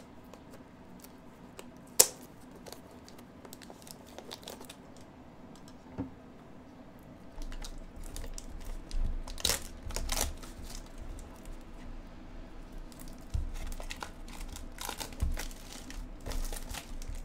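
Cardboard blaster box of baseball cards being handled and torn open: crackling and tearing of its wrapping and cardboard, with knocks and handling bumps. A single sharp click about two seconds in is the loudest sound.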